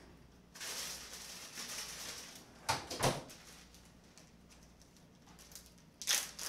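Rummaging in a refrigerator's bottom freezer drawer, then the drawer shutting with two sharp knocks about three seconds in. Near the end a plastic bag of frozen corn crinkles loudly.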